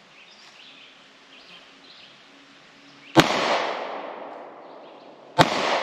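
Two 9mm pistol shots about two seconds apart, each sharp crack followed by a long echo that dies away over about a second.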